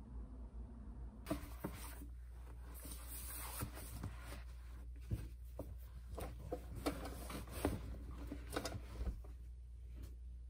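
A canvas tote bag rustling as it is handled and packed, with scattered light taps and knocks of things against the desk.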